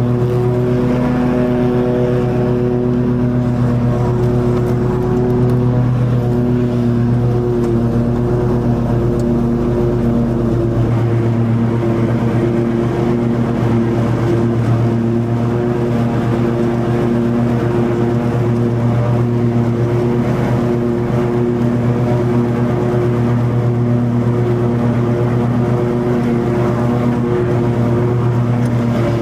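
Toro TimeCutter 50-inch zero-turn mower running steadily at working speed with its blades cutting long grass. The engine note holds even, and a deep rumble underneath eases about eleven seconds in.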